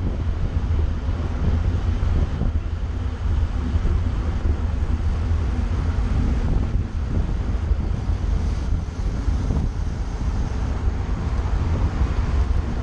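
Wind buffeting the microphone of a bike-mounted action camera on a road bike at about 40 km/h, a steady low rumble with no let-up.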